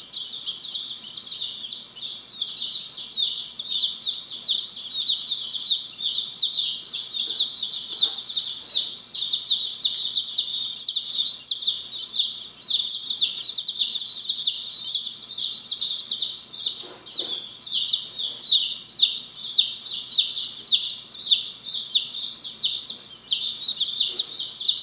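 A box of newly shipped Light Brahma chicks peeping nonstop, many high, short peeps overlapping into a steady chorus.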